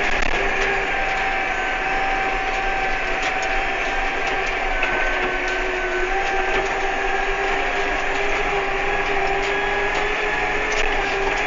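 Tractor running and driving, heard from inside its cab: a steady engine drone with a constant whine on top and scattered light rattles and clicks.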